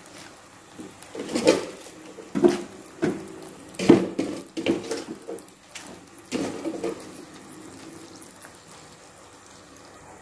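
Genjer greens blanching in a pan of boiling water as they are pushed down into it: irregular splashes and knocks against the pan over the first seven seconds, then a faint steady simmer.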